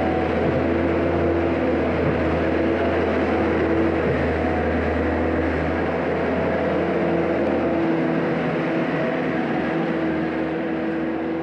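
Mustang 2044 skid steer loader's diesel engine running steadily as the machine drives across the wood chip bedding and away. It grows a little quieter near the end as it moves off.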